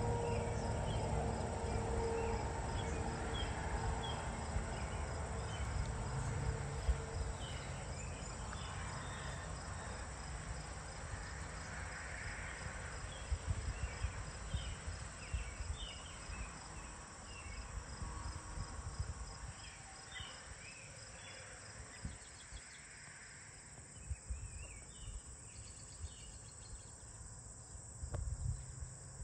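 Crickets trilling in a steady, fast-pulsing high chorus, with scattered short chirps above them. Over the first seven seconds a distant low rumble with a steady droning tone fades away.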